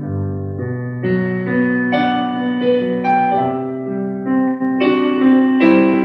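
Digital piano playing a slow passage of sustained chords, with fresh chords struck about once a second and a melody moving above them.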